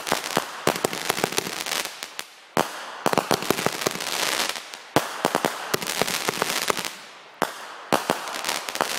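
Boxed consumer firework cake going off: repeated volleys of sharp pops and dense crackling, each new volley starting abruptly a second or two after the last.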